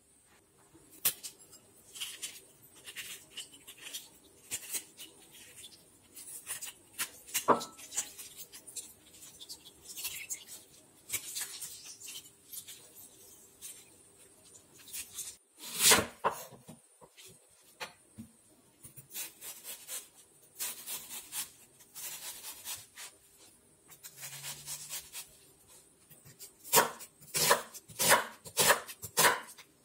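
Food-prep handling sounds: lemon quarters moved on a wooden board and a lemon squeezed over a bowl with a fork stabbed and twisted into its flesh, giving scattered clicks and rubs. Near the end a kitchen knife chops a red onion on the wooden cutting board in quick regular strokes, about two or three a second.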